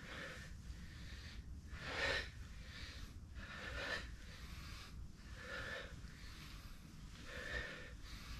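A man breathing hard through his nose and mouth while doing bodyweight squats, with a louder breath about every two seconds.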